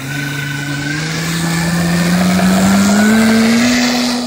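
The propeller and motor of a large 3D-printed model aircraft (UAV) running up under throttle for its takeoff roll. It makes a steady pitched drone that rises in pitch for about three and a half seconds, then holds, and it grows fainter near the end as the aircraft rolls away.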